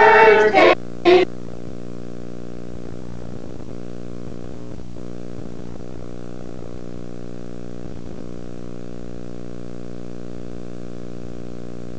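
Voices singing for about the first second, cut off abruptly. Then a steady electrical hum with many even overtones, unchanging in pitch and level, as on a blank or broken-up stretch of videotape.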